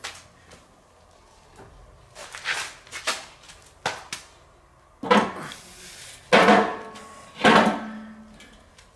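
Heavy steel fire plate being set down on the metal holder of a kettle grill: a few soft knocks, then three sharp metallic clanks about a second apart in the second half, each ringing briefly, the last ringing longest.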